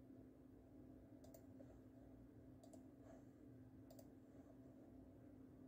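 Near silence: faint room tone with a steady low hum and a few soft, isolated clicks.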